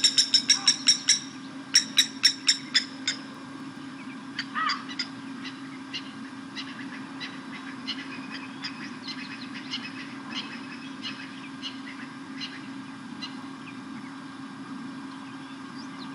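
Blacksmith lapwings calling with sharp, metallic, repeated alarm notes: a fast run that stops about a second in, another loud burst around two to three seconds in, then fainter scattered calls. A steady low hum sits underneath.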